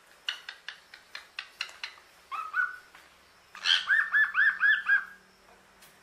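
Common hill myna calling. It gives a run of quick clicking notes, then a short rising whistle, and then a loud burst of about six rapid, arching whistled notes.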